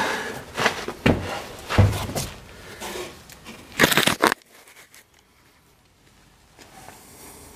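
Scraping and rustling as a person crawls under a vehicle on a concrete floor and moves the camera, in a series of loud, uneven bursts. The sound cuts off abruptly a little past halfway, leaving only faint background.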